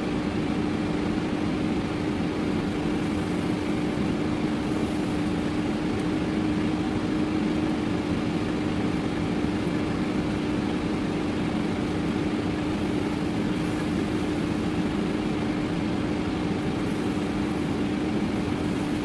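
Ninja air fryer running in the last seconds of its cooking cycle: the fan gives a steady whir with one held hum.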